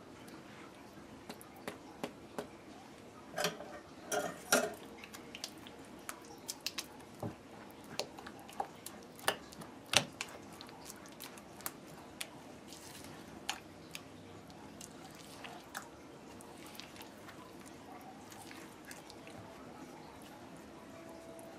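Spatula stirring a thick grated cassava and coconut batter in a glass mixing bowl: irregular soft clicks and knocks as it strikes the bowl, with a cluster of louder knocks about four seconds in and a sharp knock about ten seconds in, then lighter ticks.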